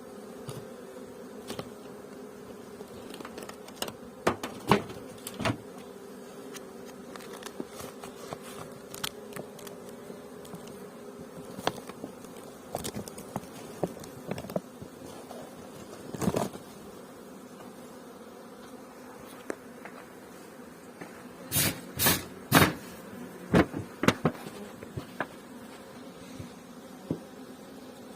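Honeybees buzzing steadily around open hives, with scattered sharp knocks and clicks throughout and a cluster of about four loud knocks about three quarters of the way through.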